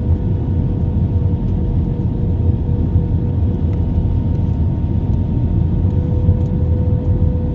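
Airplane engine noise: a steady low rumble with a constant hum on top, unchanging throughout.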